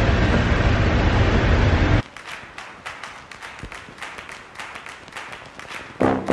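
Loud steady rumbling noise, like wind on the microphone, that cuts off abruptly about two seconds in. It gives way to a much quieter hiss with light crackling. Near the end, brass-toned horn notes begin.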